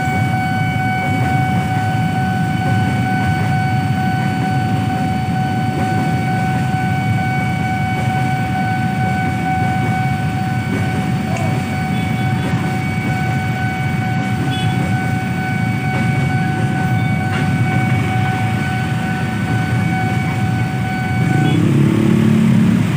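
Level-crossing warning alarm giving one steady high tone, which cuts off about 21 seconds in, over the low rumble of a passing freight train. Near the end the rumble gives way to louder motorcycle engines as the waiting traffic pulls away.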